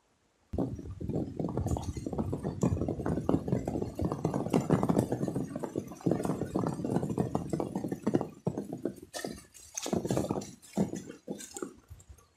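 Shallow muddy pond water splashing and sloshing in quick, irregular bursts as a person wades and spears fish in it. It starts suddenly about half a second in, grows patchier after about nine seconds and stops near the end.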